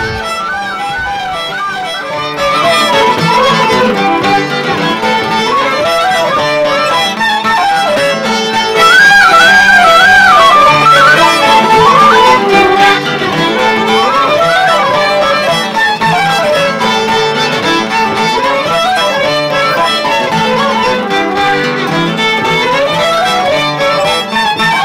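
Instrumental folk tune: a brass tin whistle plays an ornamented melody over steady lower accompanying notes.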